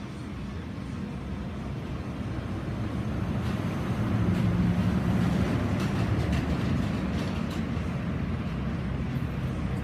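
Low, steady rumble of a running engine, slowly getting louder over the first few seconds.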